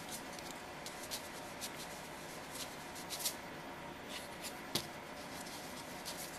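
Faint scratchy ticks and rubbing of a fingertip working powdered chalk pastel onto small polymer clay discs on a paper plate, over a steady low hiss. The sharpest ticks come a little past three seconds and again near five seconds.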